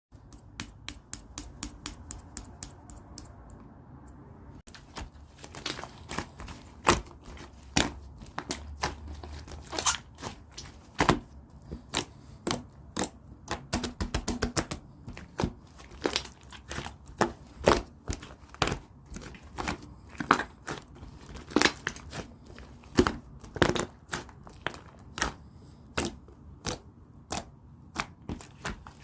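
Chewy slime worked by hand, giving a run of sharp sticky clicks and pops. The clicks come quickly and evenly for the first few seconds, then turn irregular and louder.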